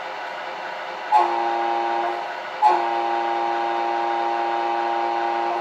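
The sound unit of a radio-controlled Scania R620 truck model sounds its air horn twice through its small speaker: a short blast about a second in, then a long one held until the end. Under the horn runs its steady simulated diesel idle.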